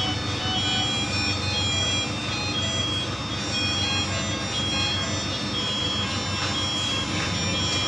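Medical monitors and equipment beeping: short high tones repeating and overlapping at several pitches, over a steady machine hum and hiss.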